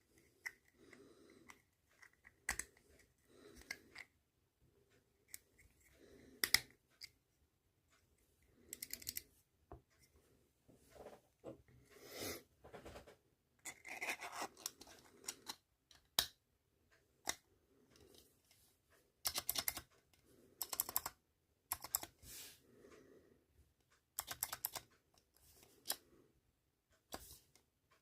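A 3D-printed fidget clicker being clicked in irregular runs of quick, sharp clicks, with pauses and faint handling rubs between the runs.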